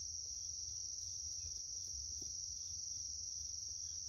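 Steady, unbroken high-pitched insect chorus, with a faint low rumble underneath.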